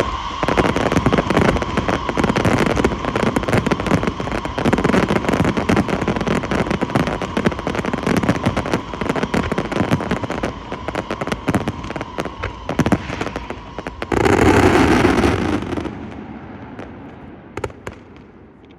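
Fireworks going off: a dense, rapid crackling and banging with a steady high tone underneath. About fourteen seconds in, a louder rushing burst takes over, then the sound fades away.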